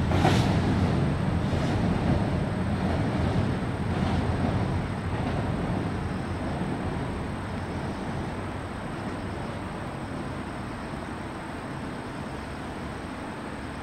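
Seoul Subway Line 7 train moving away across a river bridge: a last wheel clack right at the start, then its rumble fades steadily into a low background rumble, with a faint high steady whine throughout.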